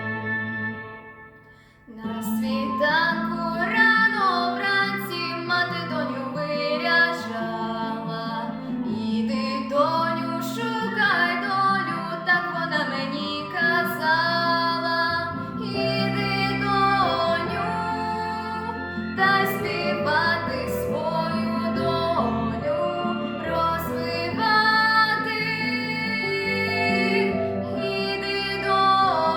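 A young female singer sings a song in Ukrainian over instrumental accompaniment. The voice comes in about two seconds in, after a brief drop in the music.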